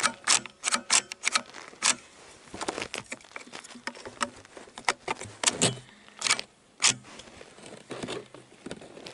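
Handling of a Ruger 10/22 rifle at its magazine and action: an irregular string of sharp clicks and clacks of metal and plastic parts, with glove rustle between them.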